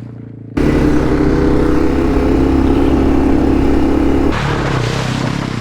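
Motorcycle engine, likely the Yamaha TW200's single-cylinder four-stroke, running at a steady speed. It cuts in suddenly about half a second in and changes about four seconds in.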